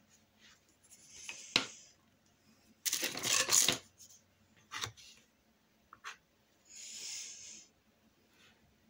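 Paintbrush strokes of acrylic paint: short dry swishes, with one louder scraping rustle about three seconds in and a few small clicks.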